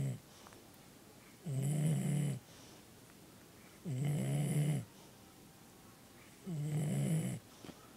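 A sleeping pet snoring in a steady rhythm: three full snores about every two and a half seconds, each lasting just under a second, with the tail of another right at the start.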